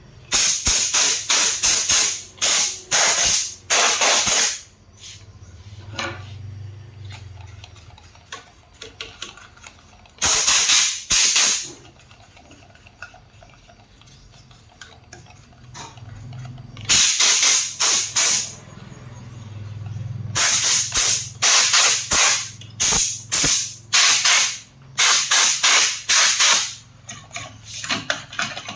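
Aerosol can spraying in short hissing bursts. There are several in quick succession at the start, a couple of longer ones in the middle, and a long run of them in the last third.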